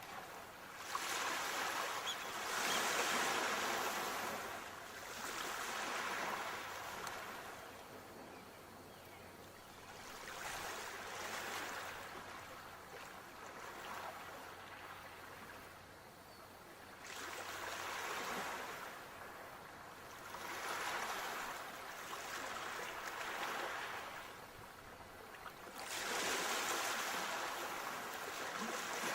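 Sea waves washing onto the shore, surging and ebbing every few seconds, with the biggest swells about three seconds in and near the end.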